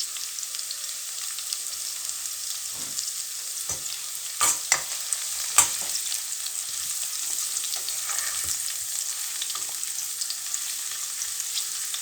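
Onions and garlic sizzling steadily in hot oil in a pan, with a spoon stirring and knocking against the pan several times, loudest about five and a half seconds in.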